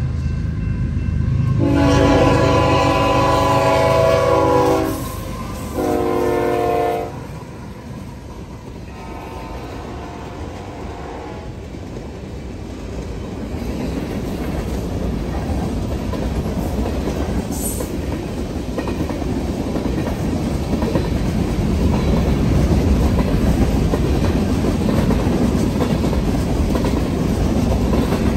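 Freight locomotive horn sounding a long blast and then a shorter one in the first seven seconds, followed by the steady rumble and wheel clatter of freight cars (covered hoppers and tank cars) rolling through a grade crossing, growing louder as they pass.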